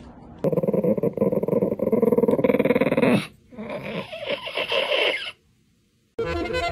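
Chihuahua growling: a long growl, then a shorter one that cuts off. Music comes in near the end.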